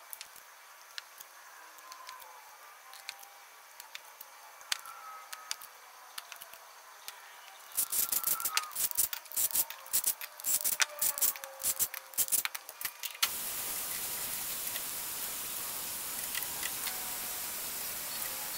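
Light metal clinks of steel connecting rods and rod caps being handled. About eight seconds in, a Milwaukee M18 Fuel cordless driver with a socket runs in a rapid series of short, rattling bursts on the rod bolts for about five seconds. From about thirteen seconds a steady hiss takes over.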